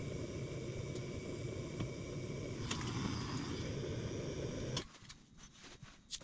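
Gas blowtorch flame burning steadily against a copper pipe joint as it is heated for soldering, shut off suddenly about five seconds in, followed by a few light clicks and taps.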